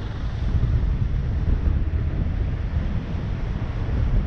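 Wind buffeting the microphone of a camera on a moving vehicle, a steady low rumble, over the hiss of tyres on a wet road.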